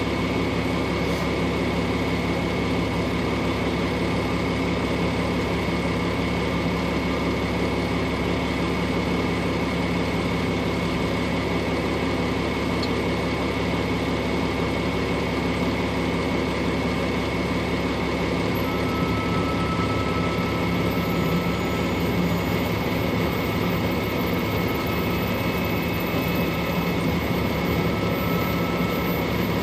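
Vehicle engine running with a steady, unchanging drone, heard from inside the cab.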